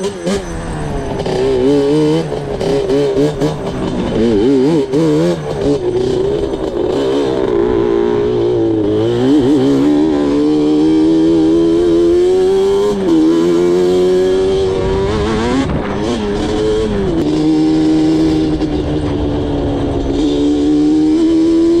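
Yamaha Banshee 350 quad's two-stroke twin engine ridden hard, revving up and down with the throttle. Its pitch wavers, climbs and drops sharply several times as it runs through the gears.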